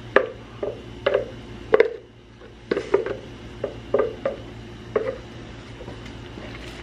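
A spatula scraping and knocking inside a blender jar while thick blended cashew sauce is emptied into a pot of soup: a string of short knocks and scrapes, about one a second, stopping about a second before the end.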